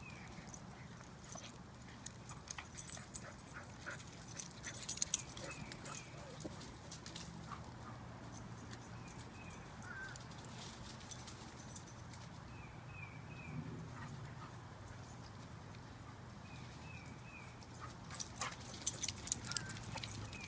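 Two small dogs play-fighting and chasing on a dry lawn with fallen leaves: bursts of scuffling and rustling paws, busiest about four to six seconds in and again near the end. A few short high chirps come and go.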